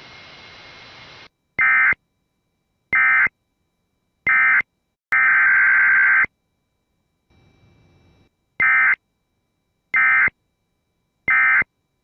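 Emergency Alert System SAME digital data bursts: harsh, buzzy warbling tones sent in seven loud bursts. Three short ones come about a second and a half apart, then one longer burst of about a second, and after a short pause three more short ones. The first short triplet comes straight after the spoken warning, as end-of-message codes.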